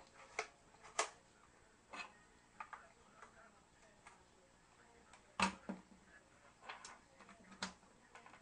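Hard plastic clicks and knocks as a folding portable speaker is unfolded, handled and set down on a wooden table: irregular, with the loudest knocks about a second in and about five and a half seconds in.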